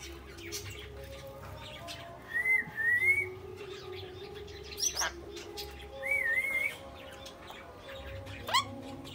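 Jenday conure whistling: a pair of short wavy whistles, a quick sweeping chirp about five seconds in, another wavy whistle, and a second quick chirp near the end.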